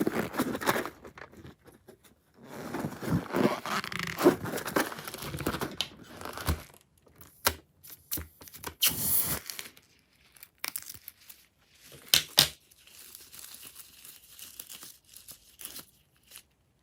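Slime being handled and pulled, giving irregular sticky crackling and tearing sounds, with a few sharper snaps about seven and twelve seconds in.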